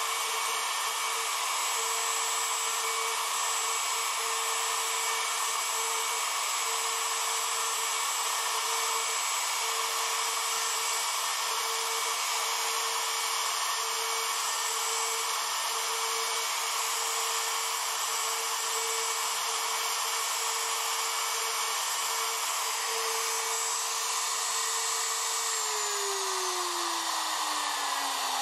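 CNC router motor running at a steady speed with a constant whine while a V-bit engraves letters into a sign board. About three seconds before the end it switches off and winds down, its whine falling steadily in pitch: the engraving job has finished.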